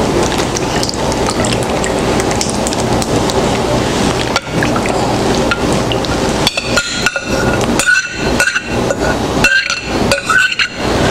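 Thick tomato sauce poured from a bowl onto cabbage rolls in a foil pan, over a steady hiss. In the second half a metal spoon scrapes the sauce out, clinking and knocking against the bowl several times with short ringing tones.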